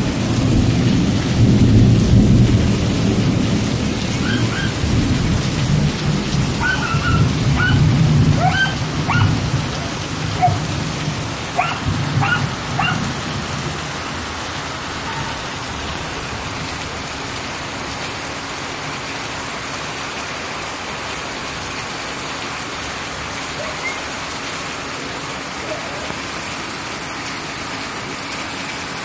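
Heavy storm rain pouring steadily, with a deep low rumble through roughly the first half that then fades out. A few short high chirps come and go in the first half.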